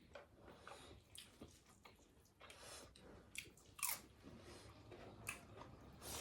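Faint close-up eating sounds: food being chewed and bitten, with scattered short clicks and small crunches, the loudest about four seconds in.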